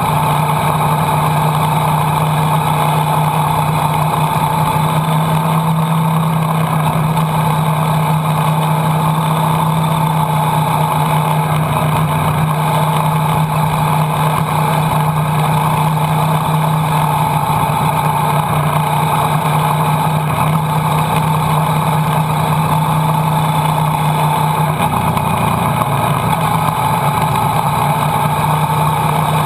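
Motorcycle engine running at a steady speed under wind noise, heard from a camera mounted on the moving bike. The engine note holds steady and shifts slightly about 25 seconds in.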